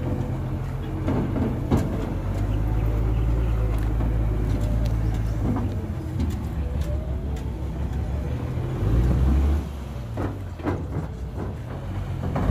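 Heavy dump truck's diesel engine running with a low, steady rumble. It surges louder briefly about nine seconds in, with a few scattered knocks and clatters.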